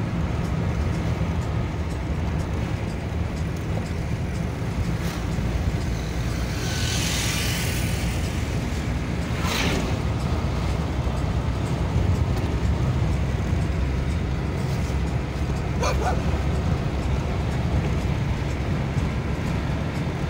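Steady low road and engine rumble of a car driving, heard from inside the cabin, with a brief hiss about seven seconds in and short sharp sounds near ten and sixteen seconds.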